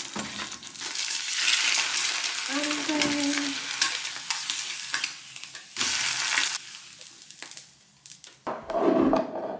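Egg frying in oil in a hot nonstick pan, sizzling, with a plastic spatula scraping and clicking against the pan as the egg is turned. Near the end there is a louder burst of sizzling as food is tipped from a bowl into the pan.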